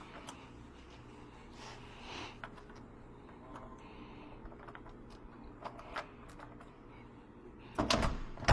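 Faint scattered clicks and scrapes of a locksmith's lockout tool working inside a car door, over a steady low hum. Near the end comes a louder clunk and rattle as the lock releases.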